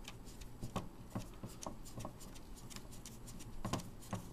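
Faint, irregular small clicks and scrapes of a hand screwing a standoff into the bottom of a plastic Otterbox 3250 case, with fingers rubbing against the case walls. The sharpest clicks come about a second in and near the end.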